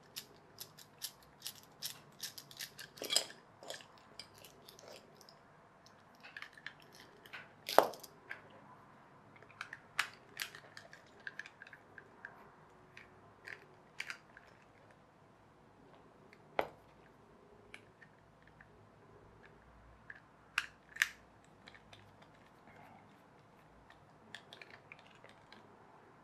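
Small plastic toy parts being handled and worked apart during a teardown: irregular sharp clicks and taps of plastic, quick and dense over the first few seconds, then sparser, with a louder knock about eight seconds in.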